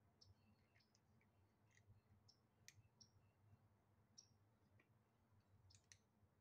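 A kitten eating dry kibble from a plastic bowl: faint, irregular crunching clicks.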